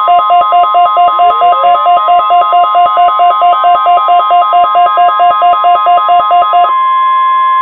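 NOAA Weather Radio's steady 1050 Hz warning alarm tone, overlaid with a weather radio receiver's fast two-pitch alert beeping, about five beeps a second. The beeping cuts off about seven seconds in, leaving the steady tone alone.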